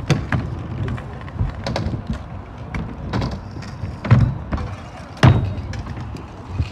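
Stunt scooter riding on concrete: a low rolling rumble of the wheels with about six sharp clacks and thuds of the scooter striking the ground, the loudest two about four and five seconds in.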